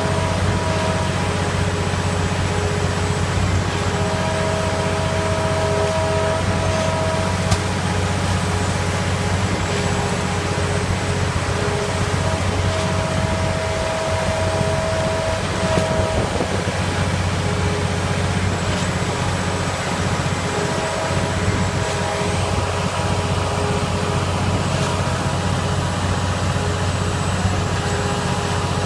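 Engines of the concrete-pouring machinery at a slab pour, running steadily: a loud, even low drone with steady whining tones over it that fade in and out, and a faint click now and then.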